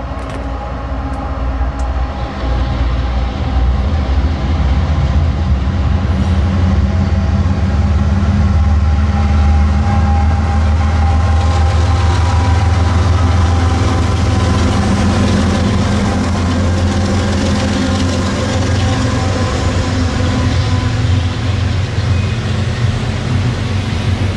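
Union Pacific double-stack intermodal train passing close by: the lead diesel locomotives' engines run with a deep, heavy drone that grows louder over the first few seconds as they approach. It then gives way to the steady rumble of the container well cars' wheels on the rails.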